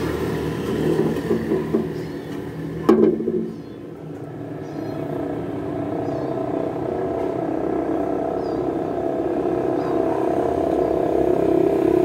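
Steady mechanical hum of a running motor, with one sharp knock about three seconds in.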